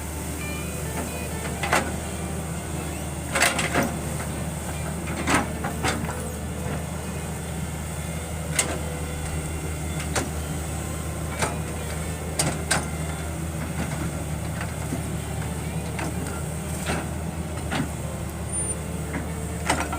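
Hitachi 110 hydraulic excavator's diesel engine running steadily under work, with sharp metallic knocks every second or two from the digging gear.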